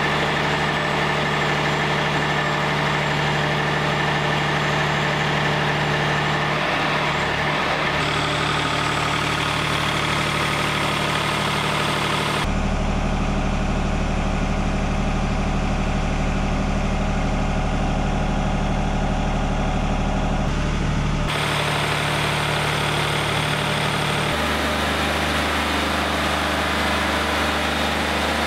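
Wood-Mizer LT40 hydraulic portable sawmill running steadily under power, a loud engine drone. Its tone shifts abruptly a few times.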